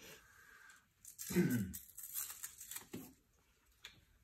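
Velcro straps being pulled and fastened around a PVC pipe frame. There is one louder rasping tear about a second in, followed by a few smaller handling rustles.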